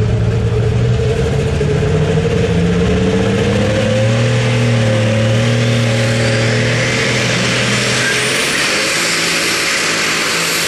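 Turbocharged diesel engine of a Case IH pulling tractor running hard, its pitch stepping up about four seconds in. From about seven seconds a high whistle climbs steeply as the turbocharger spools up at the start of the pull.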